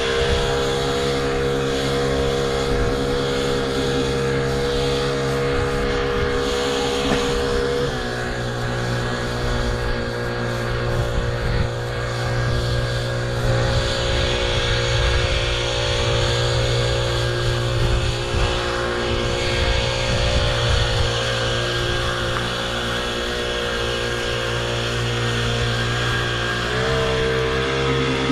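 Small outboard motor on a kayak running steadily at cruising speed. Its pitch drops a step about 8 seconds in and rises again near the end.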